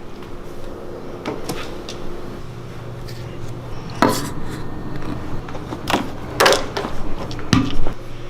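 A few sharp knocks and clatters, as of objects being handled and set down, over a low steady hum. One comes about four seconds in and several more cluster near the end.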